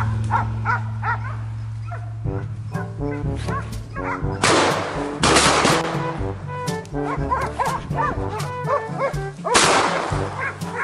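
Hunting hounds barking and yelping as they chase a wild boar, with loud shotgun blasts about four and a half seconds in and again near the end. Background music plays throughout.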